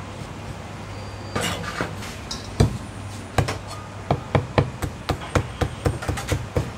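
Cleaver chopping marinated pig's ear on a thick wooden chopping block. A single chop comes about two and a half seconds in, then a quick run of chops at three or four a second.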